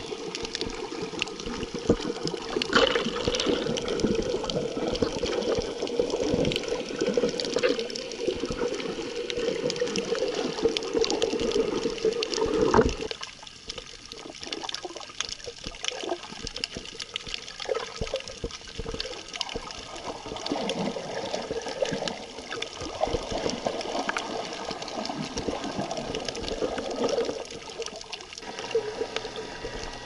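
Underwater water noise recorded by a snorkeler's camera: a rushing wash full of small crackles and clicks, under a steady hum. The hum cuts off about 13 seconds in, and the sound is quieter after that.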